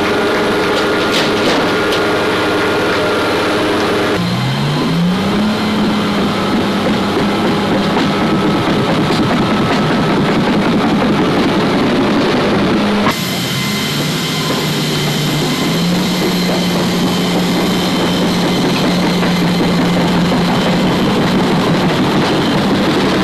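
Loud steady machinery and engine noise in a cargo aircraft's hold. Twice, about four and thirteen seconds in, the whole sound changes abruptly and a motor's low hum glides up in pitch and then holds steady.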